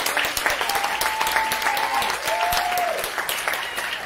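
Audience applauding steadily, with a couple of long drawn-out cheers over the clapping between about one and three seconds in. The applause begins to die down near the end.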